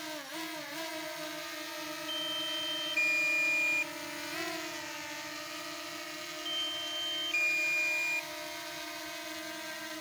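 DJI Mini 2 quadcopter flying close by, its propellers humming at a steady pitch that dips briefly near the start and lurches about halfway through as the motors change speed. Twice, an electronic two-tone beep sounds over it, a higher tone then a slightly lower one, each under a second long.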